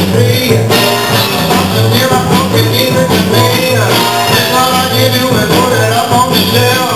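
Loud music with a steady bass beat, about two beats a second.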